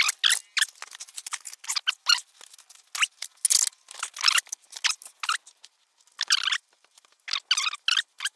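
Bubble wrap and plastic packaging on a scooter crinkling and rustling in quick, irregular bursts as it is handled and pulled out of its cardboard box.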